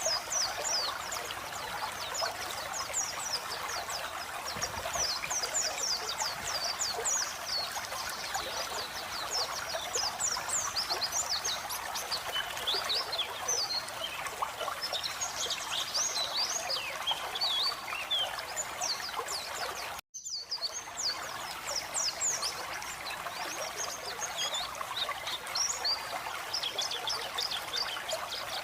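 White-eye (pleci) song, a fast run of high, quick chirping twitters, over a steady sound of trickling running water. Both break off in a brief gap about 20 seconds in, then carry on.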